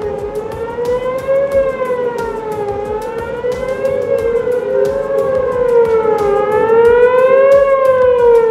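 Several outdoor tornado warning sirens wailing at once, their overlapping tones slowly rising and falling every two to three seconds and growing louder toward the end, sounding a tornado warning.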